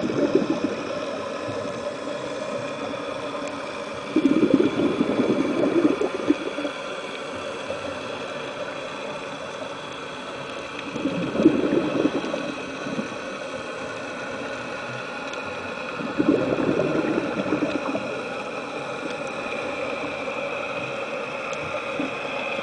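Scuba diver's exhaled bubbles bubbling out of the regulator in four breaths, about every five to six seconds, heard underwater, with a steady hiss between breaths.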